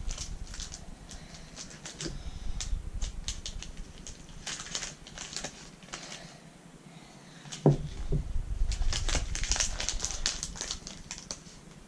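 Scissors snipping and a crinkly plastic candy wrapper crackling and rustling as a chocolate bar's clear packaging is cut and pulled open, in quick irregular clicks. One short, louder low sound about eight seconds in.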